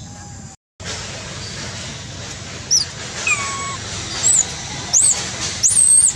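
Baby macaque crying: about five short, high-pitched squealing cries, the last one longer, from an infant begging to nurse.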